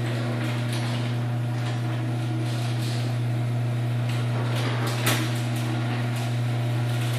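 Liftmaster 8165 chain-drive garage door opener running the door down, its motor giving a loud, steady hum. There is a single clunk about five seconds in.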